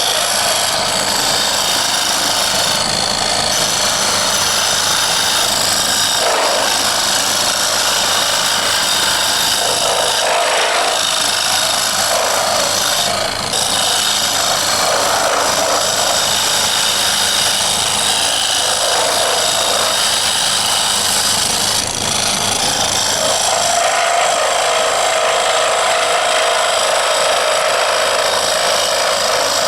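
Wood lathe running while a wooden knife handle on it is shaped with a turning tool: a steady motor hum under a continuous scraping of wood, with brief dips about 13 and 22 seconds in.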